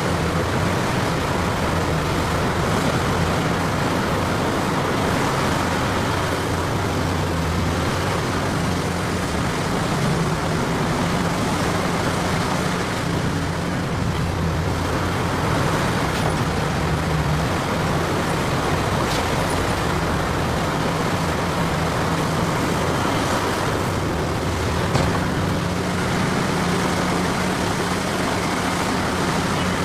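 Heavy diesel machinery running steadily, with a low, even engine drone and a few faint knocks.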